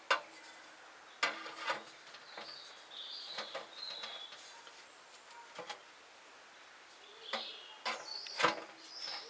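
Metal stove-flue sections being slotted into one another: several sharp knocks and clinks, with a couple of high-pitched drawn-out scrapes in between.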